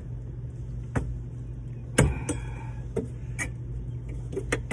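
A series of sharp taps and knocks, the loudest about two seconds in, as a stainless-steel window-blind bracket is knocked by hand down into a rubber window seal, over a steady low hum.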